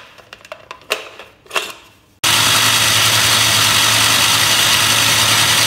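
A few clicks and knocks as a glass jar is fitted onto a mixer grinder base. About two seconds in, the mixer grinder's motor starts abruptly and runs loud and steady, dry-grinding grated coconut.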